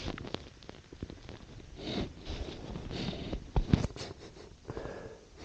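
Footsteps crunching through snow on a forest slope, an irregular series of short crunches with clothing rustle between them.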